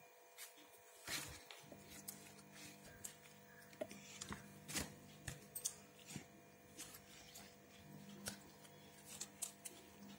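Faint handling noises of yarn being wound around a bangle over a paper sheet: scattered light clicks and rustles, over a low steady hum.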